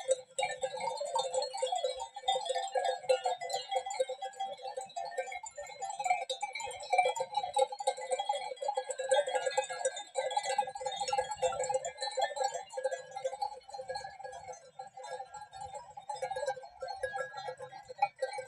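A large grazing flock of sheep, many animals bleating at once in a dense, unbroken chorus.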